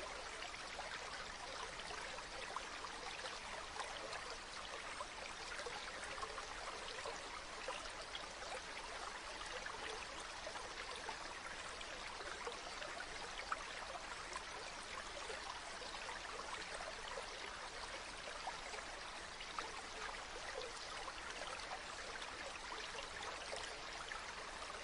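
Stream water flowing and babbling steadily, with many small splashes and trickles.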